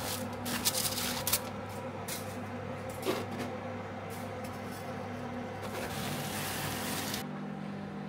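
Aluminium foil crinkling and rustling as it is peeled off a burned-out casting mold, with sharp crackles in the first second and a half and another stretch of rustling near the end, over a steady low hum.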